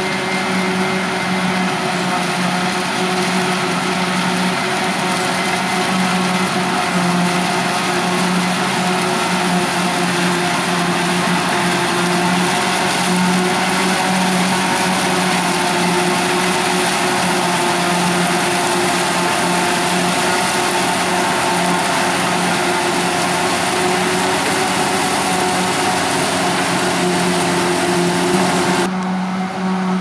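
Krone BiG X 530 forage harvester chopping maize under load with a tractor running alongside: a steady, loud mechanical drone with a dense rushing hiss. The hiss drops away sharply about a second before the end.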